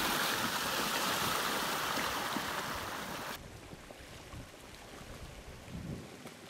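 Flash flood surge of muddy water and woody debris rushing down a sandy wash: a loud, even rush of churning water. About three and a half seconds in it drops suddenly to a much quieter, lower wash of flowing water.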